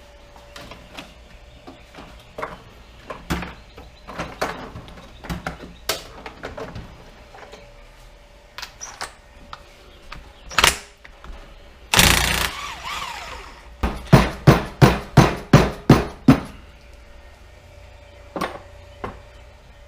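Metal tools working on a Polaris Sportsman 800 engine's crankcase: scattered clinks and knocks, a loud scraping burst about a second long near the middle, then a quick run of about ten loud strikes, some four a second, as the last bolt comes out and the cases are worked apart.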